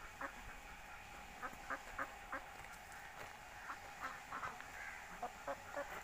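A flock of domestic ducks and geese calling: a scatter of short quacks and honks, several a second at times, with no steady rhythm.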